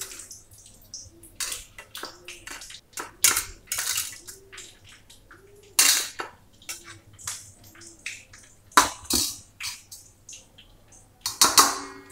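Steel spatula stirring and fluffing soaked flattened rice (poha) in a stainless-steel bowl: irregular scrapes and clinks of metal on metal, with the loudest strokes about six, nine and eleven seconds in.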